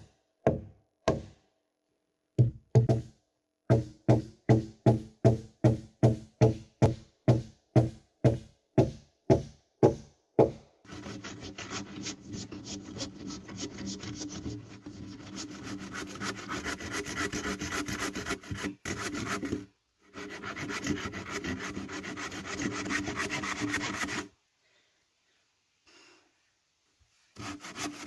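Wood being struck in a steady rhythm of about two blows a second, like hammering nails into wooden boards. About eleven seconds in this gives way to a continuous rasping of a saw cutting through wood, which stops short for a few seconds before the blows start again near the end.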